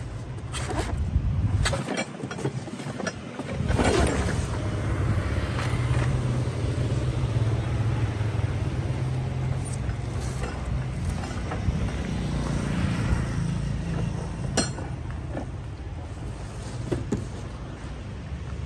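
Knocks and cardboard rustling as a slide miter saw is lifted out of its box and set down on stone paving, most of it in the first few seconds, over a steady low rumble. A single sharp click comes about two-thirds of the way in.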